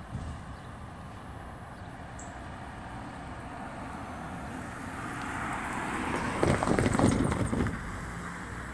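A road vehicle approaching and passing, growing louder from about five seconds in, with a run of rattling knocks at its loudest near the end, then dropping back.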